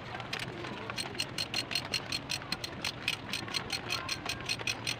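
Ratchet wrench clicking in a fast, even run, about five clicks a second, as it turns the bolts of an engine's rocker arm assembly on the cylinder head.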